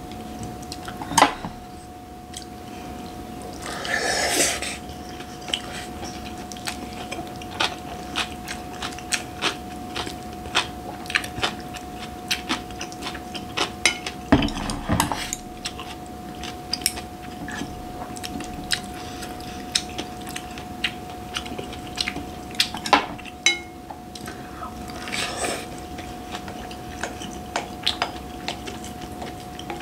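Wooden chopsticks clicking and scraping against a glass bowl, with chewing in between, over a faint steady hum.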